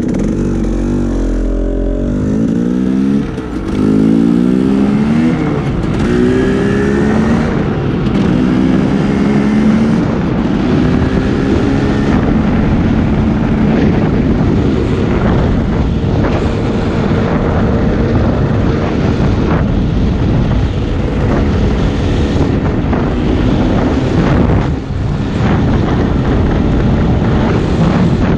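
Dirt bike engine accelerating up through the gears: revs climb and drop back with each shift, several times over the first dozen seconds, then it runs steadily at cruising speed. Picked up by a helmet-mounted GoPro Hero5 in its housing, with manual audio control off.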